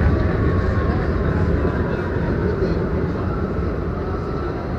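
NYC subway G train car running along a station platform, heard from inside the car: a steady rumble of wheels on rail with a faint whine that slowly falls in pitch. It grows gradually quieter as the train slows.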